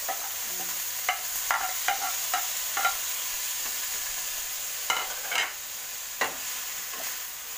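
Carrots and onions sizzling in oil in a wok, with a steady hiss, while a wooden spoon knocks and scrapes against the pan in about eight short strokes as it stirs them.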